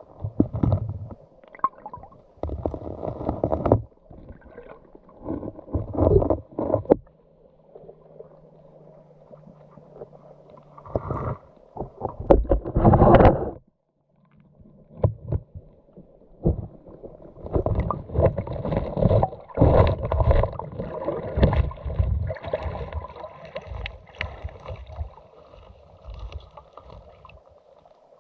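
Water sloshing, gurgling and dull knocking heard underwater, muffled, in irregular bursts with quieter stretches between, as the streambed around a clear plastic funnel fish trap is disturbed.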